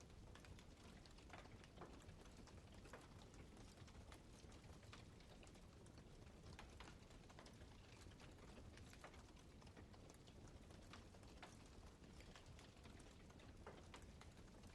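Campfire burning quietly: irregular faint crackles and pops of burning wood over a low steady rumble.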